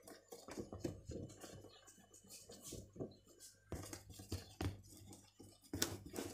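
A spoon stirring flour into cake batter in a plastic bowl: faint, irregular scraping and tapping.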